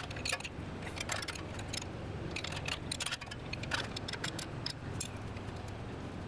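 Irregular metallic clicking of a hand ratchet wrench loosening the nuts on a Honda Civic front strut's lower mounting bolts, over a steady low hum.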